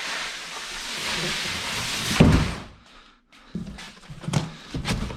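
A steady scraping, rushing noise, then one heavy thump about two seconds in, followed after a short pause by several lighter knocks and clicks. These are the sounds of a heavy box and its fittings being handled.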